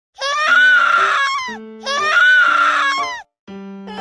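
A young child crying hard: two long wailing sobs, one after the other, over light background music.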